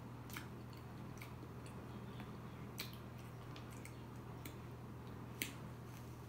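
Close-miked eating of soft red velvet ice cream cake: quiet wet mouth clicks and smacks while chewing, three of them sharper than the rest, over a steady low hum.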